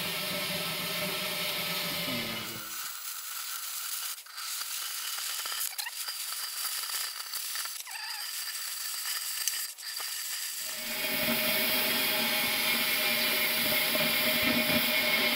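Oxy-fuel cutting torch hissing steadily as it burns a square opening through a steel hitch tube. The hiss thins to a high, quieter sound with a few sharp clicks for most of the middle, then comes back fuller and louder about eleven seconds in.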